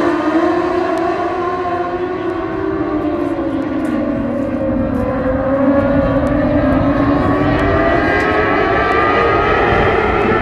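A pack of motorcycle-engined dwarf race cars running laps at high revs. Several engines are heard at once, their pitch falling and rising as the cars lift for the turns and accelerate out of them.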